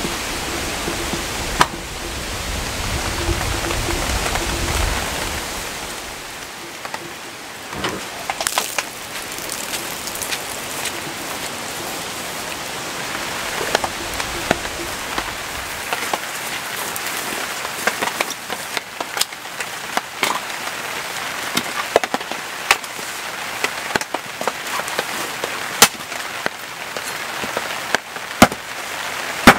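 Heavy rain falling steadily, with sharp, irregular clicks of drops that come more often in the second half. A low rumble sits under the rain for the first few seconds.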